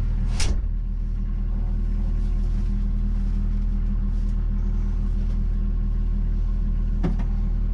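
Diesel engine of a work machine, just started, running steadily at an even pitch, with a sharp clack about half a second in and a fainter one near the end.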